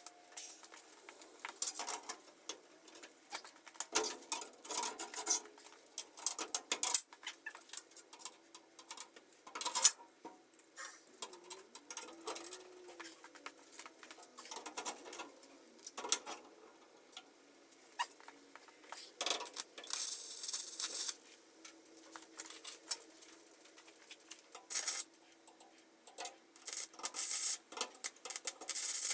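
Scattered clinks, knocks and scrapes of aluminum angle stock and tools being handled, with a few short crackling bursts of a stick-welding arc in the second half.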